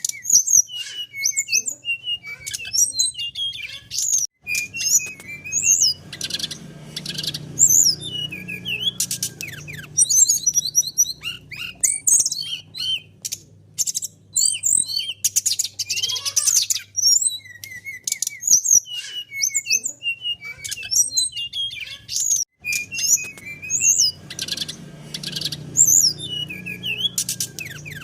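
Brown-chested jungle flycatcher singing: a long run of quick, high chirps, sweeping notes and short trills in varied phrases. A faint low rumble sits underneath for several seconds at a time.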